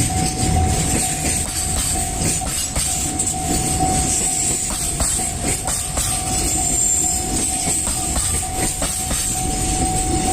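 Freight train of Koki container flat wagons hauled by a DD200 diesel locomotive rolling steadily over a level crossing, wheels clacking over rail joints. A level-crossing warning bell rings throughout.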